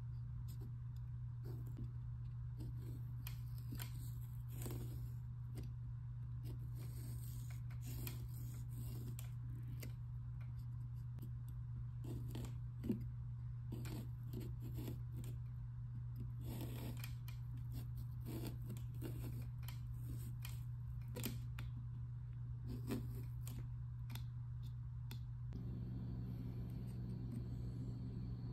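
Small knife cutting into a pumpkin's rind, a string of short, irregular scraping cuts and clicks over a steady low hum.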